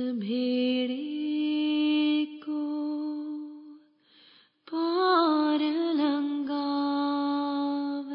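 A single voice singing a devotional shabad unaccompanied, stretching each syllable into long held notes. About four seconds in there is a short break, then the voice wavers through an ornament before settling into another long held note.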